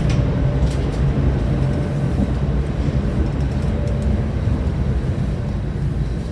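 Steady low rumble of the car ferry M/V Kaleetan's engines and machinery, with a faint steady hum above it and a few light clicks.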